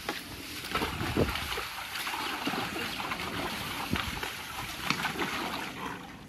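Water splashing in a plastic kiddie pool: a steady rush of water broken by several irregular heavier splashes.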